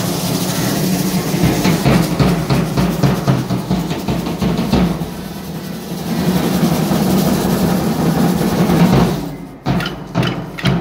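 Drums playing for a street dance: a bass drum with quick snare-style beating and rolls. The drumming stops near the end, leaving a few last separate beats.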